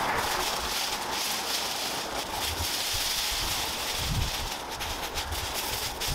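Leaves and cut bamboo stalks rustling and crackling as brush is pulled and dragged by hand, with wind rumbling on the microphone and a low thump about four seconds in.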